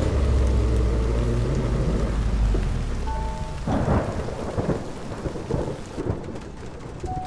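Heavy rain falling and pattering on surfaces, with a car engine's low rumble underneath that fades out about three and a half seconds in, leaving the rain.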